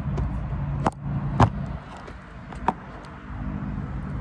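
Three sharp knocks on a plastic tray table from handling the camera and coin, the loudest about a second and a half in, over a low steady hum.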